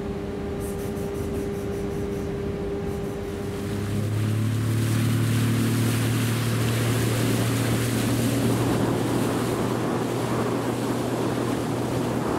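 A steady mechanical hum, then about four seconds in a motorboat's engine comes in with a deep, steady drone under the rush of water and wind as the boat runs across open water.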